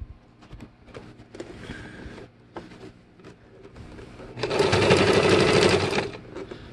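Electric sewing machine stitching through denim, fringe trim and ribbon in one short run that starts about four seconds in and stops after less than two seconds. Before it there are only faint clicks of the fabric being positioned under the needle.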